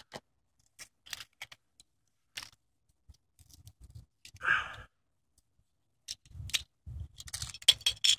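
Light clicks and clatter of the broken plastic and metal pieces of an MP4 player being picked up off concrete, with one louder brief noise about halfway through. Denser rustling and low bumps near the end as the camera is handled and moved.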